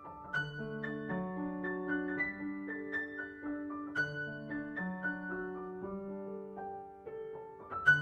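Slow, relaxing solo piano music: soft single notes and chords, each struck and left to fade, over low bass notes that return every few seconds.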